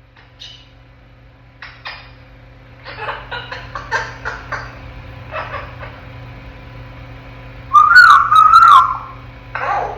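African grey parrot making a run of short clicks and chirps, then a loud, wavering whistle of a few notes about eight seconds in.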